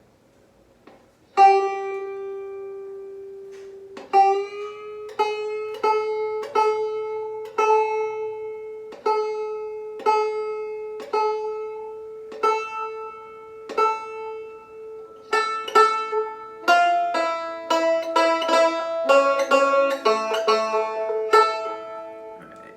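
Hatfield Walnut Special resonator banjo, with walnut neck and walnut resonator, being picked. It opens with a single ringing note about a second and a half in, then plays slow single notes that grow busier in the last several seconds.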